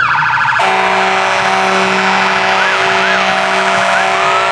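Emergency-vehicle sirens leading a parade: a short rapid siren yelp, then a long, loud, steady horn blast with a siren warbling faintly beneath it, and a siren winding up in pitch near the end.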